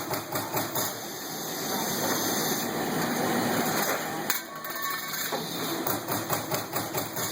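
Trumpf TC500-1300 CNC turret punch press with a hydraulically driven ram punching sheet metal in rapid strokes, several a second. The strokes pause for about three seconds in the middle while a steady machine noise carries on, then resume.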